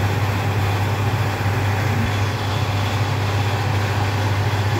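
Chicken pieces sizzling and steaming in a lidded pan as they give up their own water, an even hiss over a steady low hum.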